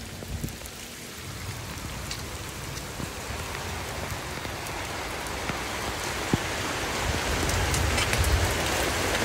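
Steady rain falling, with scattered sharp drop hits, growing gradually louder.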